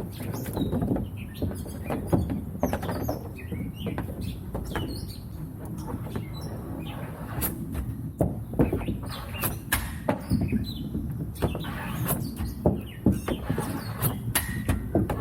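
Hockey stick blade and puck clacking on plastic shooting tiles as a player stickhandles and shoots: many sharp, irregular clicks and knocks, with short high squeaks between them.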